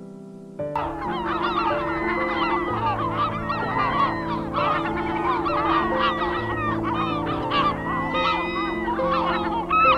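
A large flock of birds calling in flight: a dense, unbroken chorus of overlapping calls that starts suddenly about a second in and carries on throughout.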